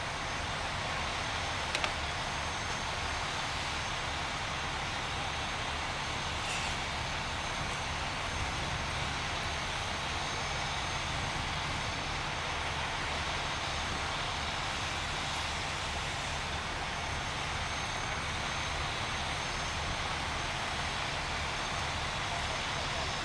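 Steady engine drone with an even rushing hiss over it, unchanging throughout.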